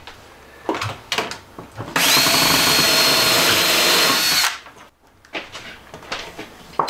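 Cordless drill running steadily for about two and a half seconds with a high whine, driving a self-drilling tek screw up into the bus's ceiling to fix an upper cabinet. A few light knocks come before it.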